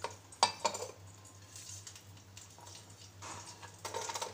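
Kitchen dishes being handled and set down: three sharp knocks and clinks within the first second, then faint shuffling of crockery.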